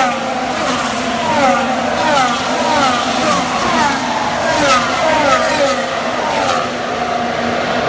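Formula One cars' V6 turbo engines passing at speed, their engine notes falling in a quick string of steps, about two a second.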